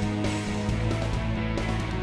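Background music with guitar, played at a steady level.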